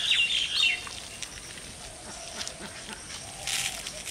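Small birds chirping in quick repeated notes through the first second, then a fainter outdoor background with a short hissing burst of noise about three and a half seconds in.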